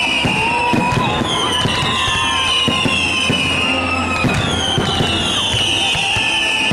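Fireworks going off: a dense run of bangs and crackles, with high whistles that fall in pitch, one after another about every second and a half.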